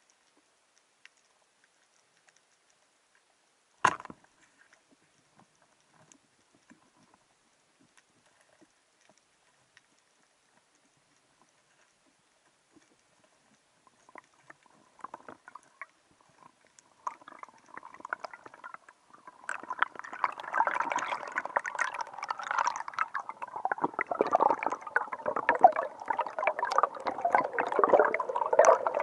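Underwater, through the camera: a single sharp clack about four seconds in, a speargun firing, then near quiet. From about seventeen seconds, water rushing and bubbles crackling past the camera build up and become loud and continuous as the diver swims up.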